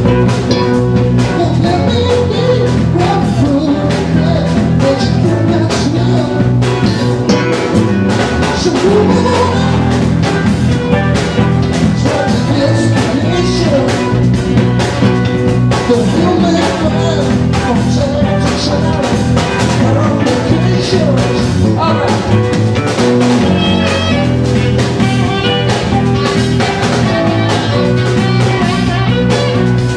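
Live band playing loud, with keyboard, saxophone and drum kit over a steady drum beat, and a voice singing.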